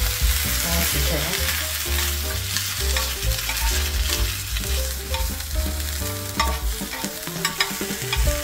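Sautéed ham slices scraped and tipped from a non-stick pan into a glass bowl of mashed potato and corn, a steady rustling and scraping noise with light clicks. Under it runs music with a low, stepping bass line.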